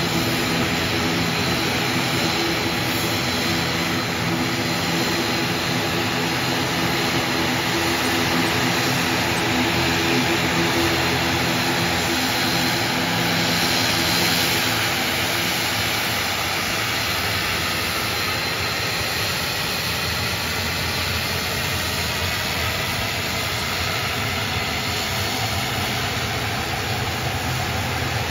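ATR 72 twin turboprop engines running at taxi power: a steady propeller drone with a high turbine whine over it. It grows a little louder about halfway through as the aircraft turns toward and passes, then eases off slightly.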